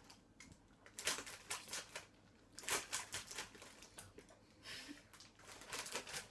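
A plastic sweet packet crinkling as it is handled, in several short bursts.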